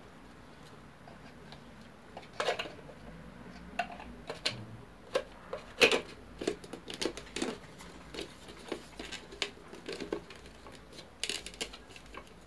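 Hard plastic housing halves of an electric citrus juicer handled and fitted together: irregular light knocks, clicks and scrapes, beginning about two seconds in, with the loudest knock near six seconds.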